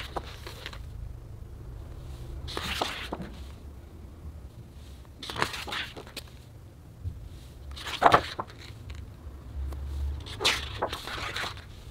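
Pages of a large hardcover photobook turned by hand, a paper swish and rustle about every two and a half seconds, the loudest about eight seconds in. A low steady hum runs underneath.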